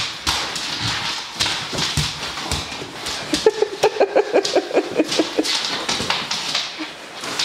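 Seven-month-old Labradoodle puppy scrabbling at a jacket on a laminate floor: many quick clicks and knocks of claws and feet, with fabric rustling. About halfway through comes a run of short, rapid pitched vocal sounds lasting about two seconds.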